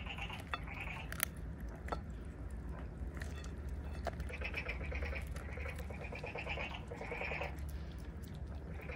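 Kittens eating cooked chicken: repeated short bursts of chewing and gnawing, with a few sharp clicks about a second and two seconds in.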